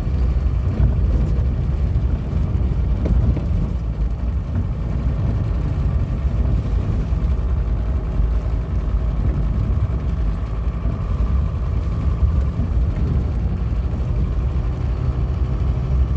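Inside the cabin of an Opel Frontera B with a swapped-in 2.5 five-cylinder TDI turbo-diesel, driving at a steady pace: a steady low drone of the engine mixed with tyre and road noise.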